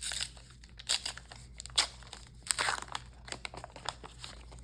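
A trading-card booster pack's wrapper being torn open and crinkled by hand: a quick run of sharp crackles and rips.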